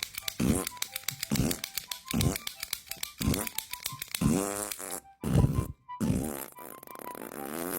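Manual lock pick gun's trigger being squeezed repeatedly, sharp metallic snaps, over background music with a low bending tone about once a second.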